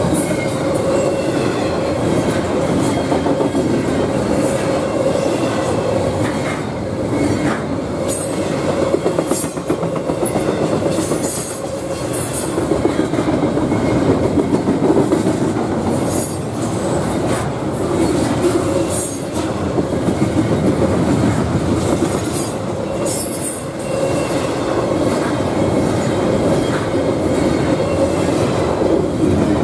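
Double-stack intermodal freight cars rolling past: a steady rumble and clatter of steel wheels over the rails, with brief high-pitched wheel squeals now and then.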